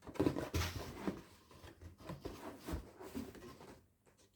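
Hands working at taped packaging: irregular rustling, scraping and small clicks of plastic and cardboard, dying away near the end.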